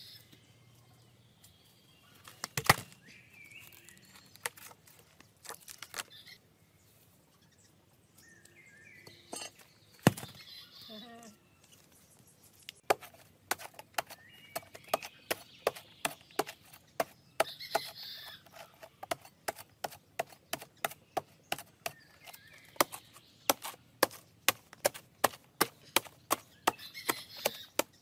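Machete chopping into a soft, fibrous banana-tree trunk: a few single strokes at first, then a steady run of blows about two a second from about halfway on.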